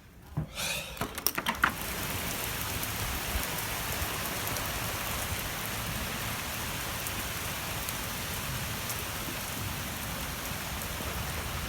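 A few clicks and knocks, then heavy thunderstorm rain pouring down steadily.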